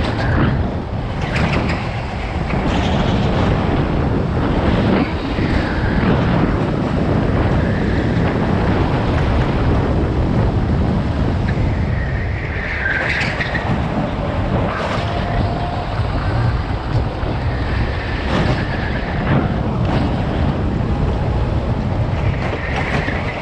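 Go-kart engine running at racing speed through a series of corners, heard from onboard the kart, with wind buffeting the microphone. Brief high squeals come about halfway through and near the end.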